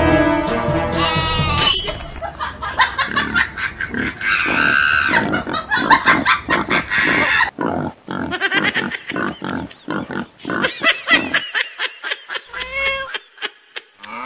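Comic animal-call sound effects. A held call rises sharply about a second and a half in, followed by a fast run of short grunting calls that thins out after about seven seconds.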